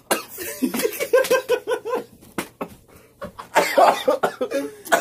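A man laughing and coughing: a quick run of rhythmic laughs about a second in, then a louder, rough coughing burst after about three and a half seconds.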